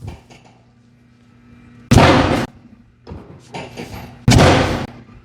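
Two loud, heavy thumps about two seconds apart, each lasting about half a second, during chiropractic treatment.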